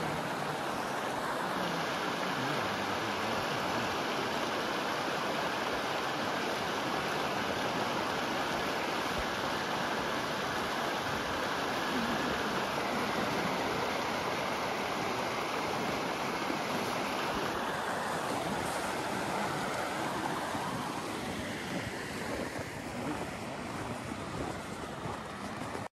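Shallow mountain creek rushing over rocks, a steady rush of flowing water; from about two-thirds of the way in it becomes a little quieter and less even.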